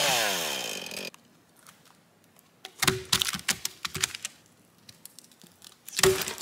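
A chainsaw's engine winds down from full throttle to a stop within the first second, its pitch falling. Then come sharp wooden knocks and crackles as logs shift and are stepped on: a cluster about three seconds in, and one loud knock near the end.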